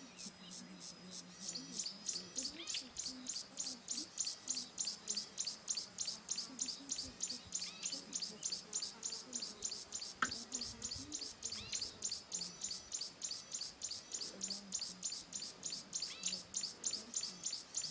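A high-pitched chirp repeated steadily about three times a second, with a few fainter falling whistled chirps from other birds now and then. A faint low hum sounds for the first half, and there is a single click about ten seconds in.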